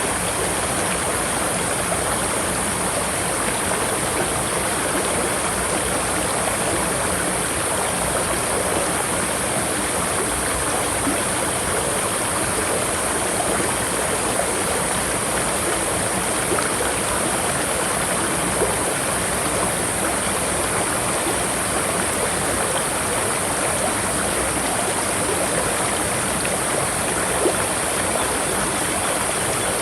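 River water flowing, a steady rushing noise that never lets up.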